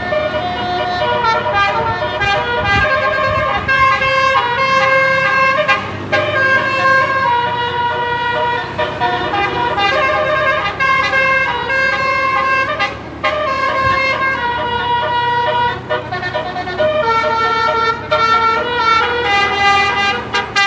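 Bus 'telolet basuri' musical air horn playing a tune non-stop: several trumpet notes sounding at once and stepping from pitch to pitch, with only brief breaks.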